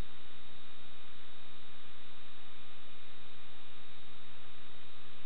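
A steady hum made of many even low tones under a thin high whine, running unchanged with no knocks or other events.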